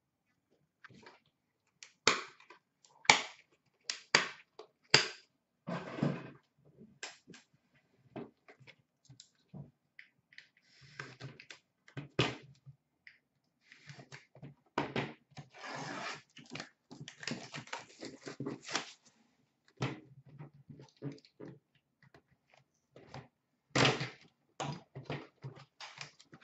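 Hands handling trading cards and a metal card tin on a glass counter: a string of sharp knocks and clacks, loudest near the start and near the end, with stretches of rustling and scraping of packaging in between.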